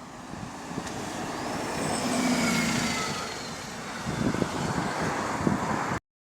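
Bus coming in and slowing, with a whine falling in pitch as it slows. The engine then runs with sharp puffs from a small exhaust leak. The sound cuts off suddenly near the end.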